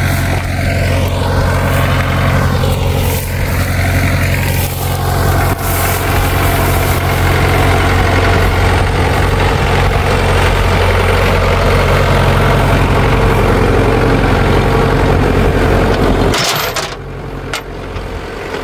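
International B275 diesel tractor engine idling steadily. It turns quieter and duller about two seconds before the end.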